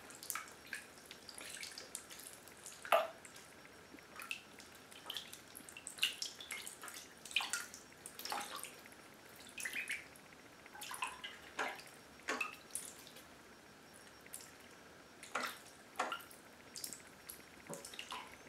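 Indian Runner ducklings paddling and dabbling in shallow bathwater: small splashes and drip-like plinks of water, short and irregular, coming every second or so.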